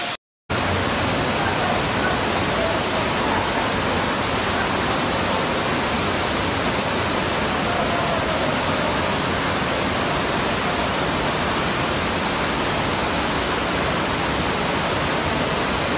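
Flash-flood water pouring into a subway station and rushing across the platform: a steady rush of water, broken by a brief dropout just after the start.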